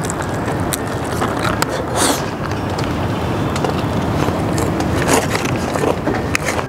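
Close-up eating sounds from biting and chewing a large crisp-skinned chicken leg, with several sharp crunches, over a steady background of street traffic.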